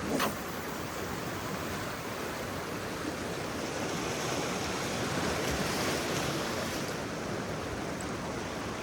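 Ocean surf washing against the shore, a steady wash that swells a little midway, with a brief bump just at the start.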